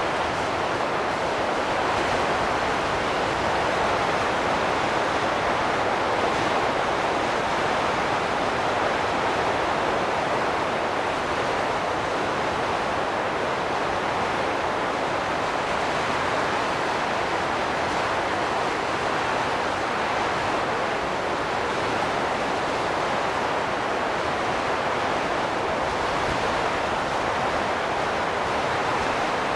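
Wind blowing as a steady rushing noise, even in level with no distinct swells.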